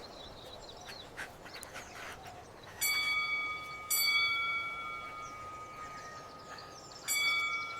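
A small bell rung three times, each ring starting sharply and fading slowly, over faint background ambience.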